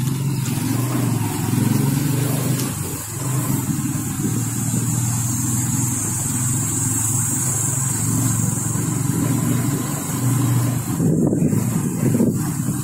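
Small engine of a two-wheeler running steadily at low road speed, heard from the rider's seat. It swells briefly twice near the end.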